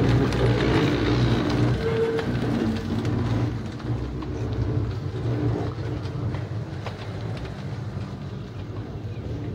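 An engine running steadily with a low hum, a little fainter after about three seconds.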